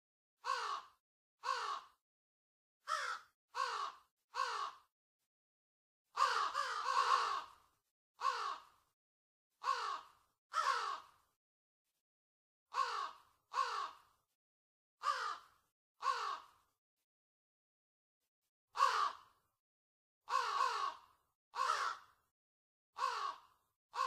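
Crows cawing: single harsh caws, often in runs of two or three about a second apart with gaps of one to two seconds between runs. About six seconds in, several caws overlap in a longer stretch. Between the caws there is dead silence.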